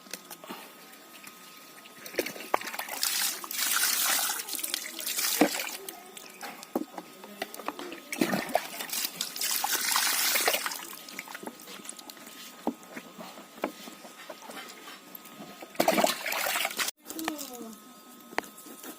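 Water poured and splashing in three bursts, with clicks and knocks of handling between them, as pieces of freshly cleaned chicken are washed.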